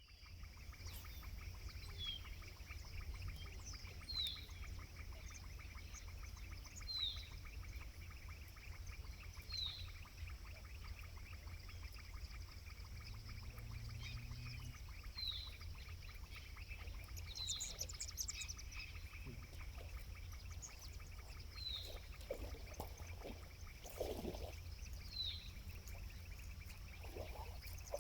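A bird repeats a short, downward-slurred call every two to three seconds over a steady high buzz and a constant low rumble. A few soft low knocks come near the end.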